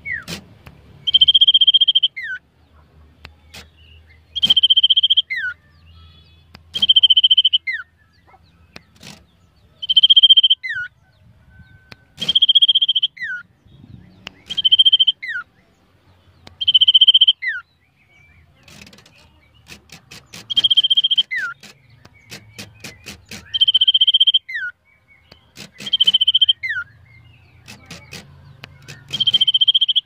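Common iora (cipoh) whistling over and over, about every two to three seconds: each call is a long level whistle followed by a short falling note. Runs of sharp ticks come between some of the calls.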